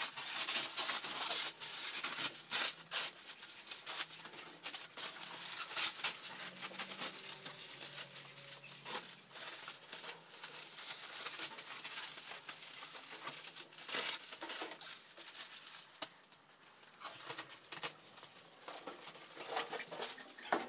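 Plastic stretch wrap being pulled and peeled off a large boxed machine, crackling and rustling in uneven spurts with sharp crinkles. There is a short lull about three-quarters through.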